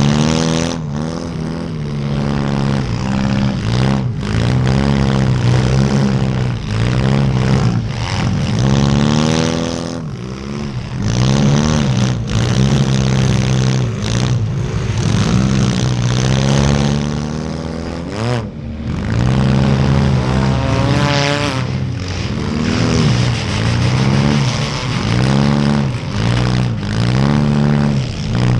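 Compact demolition derby car's engine revving up and down over and over as the car accelerates, backs off and changes direction.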